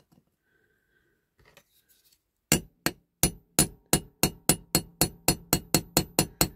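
Light hammer taps on a pin punch, driving out the small pin that holds a bell on a diecast Dinky fire engine body. After a quiet start comes a run of about fifteen sharp, ringing metal taps that quicken from about three to nearly five a second.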